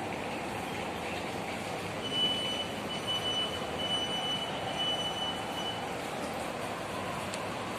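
Steady city street traffic noise, with a high-pitched tone sounding in a few broken stretches from about two seconds in for roughly four seconds.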